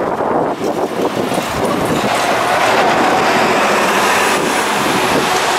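San Francisco Muni New Flyer XDE60 articulated hybrid bus, with a Cummins diesel and Allison H 50 EP hybrid drive, pulling away and passing close by. Its engine and drivetrain run loudly and steadily, with a faint high whine in the second half.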